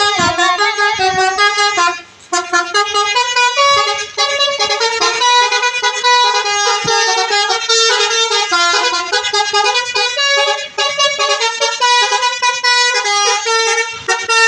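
Bus 'telolet' musical air horn, a Basuri multi-tone horn, playing a fast tune of stepping notes, with a short break about two seconds in.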